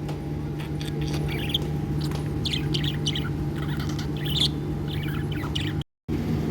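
Budgerigars chirping in short, scattered chirps over a steady low hum. The sound drops out for a moment near the end.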